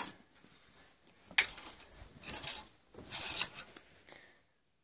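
Three short bursts of rubbing and scraping of cloth close to the microphone, about a second apart.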